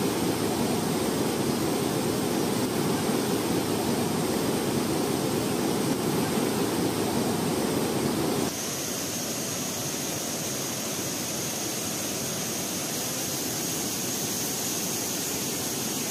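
Whitewater rapids rushing over and around boulders, a steady full rush of water. About halfway through the sound changes to a lighter, hissier rush with a thin steady high tone over it.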